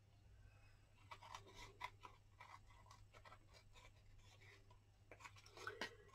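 Faint snips and scratchy paper sounds of card stock being trimmed with scissors, a scattering of small clicks and short strokes.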